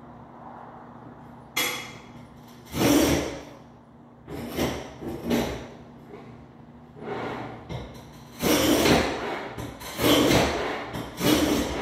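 Irregular scraping and knocking noises in a series of bursts about a second long, louder and more frequent in the second half, over a faint steady hum.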